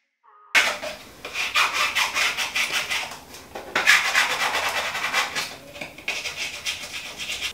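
Plastic scraper rubbed in quick repeated strokes over peel-and-stick contact paper on a tiled wall, smoothing the adhesive sheet down onto the tiles. It starts about half a second in, with a couple of short pauses.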